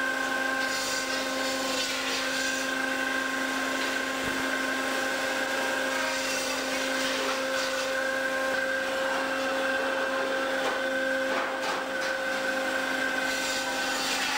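Steady running drone of fish-processing machinery in a factory vessel's steel processing space, with several steady whining tones and a few short knocks.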